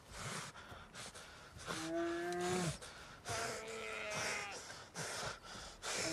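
A badly wounded man groaning in pain, two long low moans each falling slightly at the end, with ragged heavy breaths between them.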